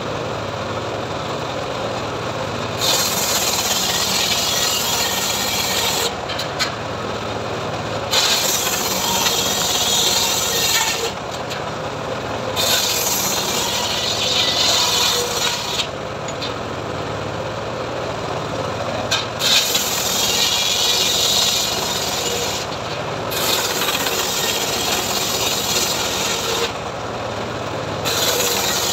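Engine-driven homemade circular saw bench ripping wooden boards: the engine runs steadily, and the blade's loud rasping whine rises each time a board is pushed through. There are about six cuts of roughly three seconds each, the last starting near the end.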